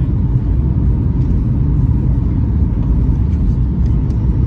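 Steady low rumble inside the cabin of a Boeing 737 MAX 8 descending on approach: the engines and airflow heard from a seat over the wing.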